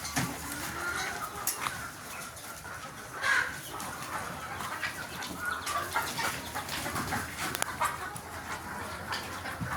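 A flock of desi chickens clucking and calling, many short overlapping calls with a few sharp clicks among them.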